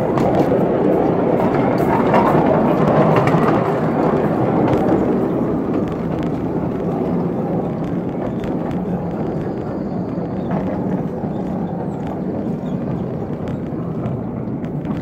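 Miniature railroad train rolling over newly laid track: a steady rumble of steel wheels on rail with faint scattered clicks, gradually getting quieter from a few seconds in.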